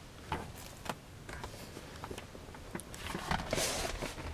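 A few light clicks and knocks from hands handling things inside a car cabin, then a brief rustle about three and a half seconds in as a hand brushes over the leather seat.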